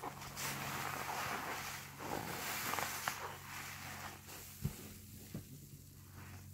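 Soapy HDX sponge squeezed and worked through thick suds: wet squishing with the fizzy crackle of foam, easing off after about four seconds, with two soft wet pops near the end.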